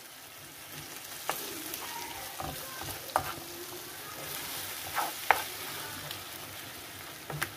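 Onion-tomato masala with yogurt sizzling in a frying pan while a wooden spoon stirs it, with a few sharp taps and scrapes of the spoon against the pan.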